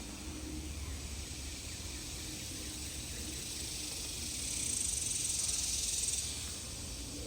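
Steady high-pitched outdoor insect buzz, with one louder buzz swelling about four seconds in and fading about two seconds later, over a low rumble.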